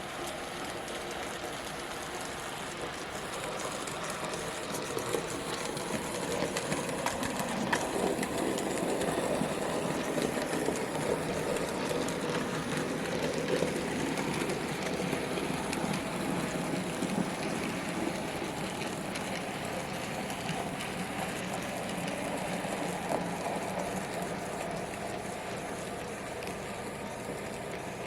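N gauge model train running along the layout's track: a steady whirr of motor and wheels with fine, rapid clicking of the wheels on the rails. It grows louder from about four seconds in and eases a little near the end as the train passes.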